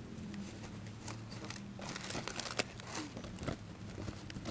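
Crinkling and scattered sharp clicks of things being handled, busiest in the middle, over a faint steady low hum.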